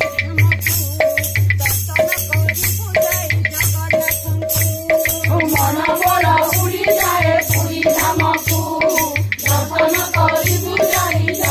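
Devotional kirtan music: a steady, fast drum beat with jingling percussion on every stroke, and women's voices singing, more prominent from about halfway through.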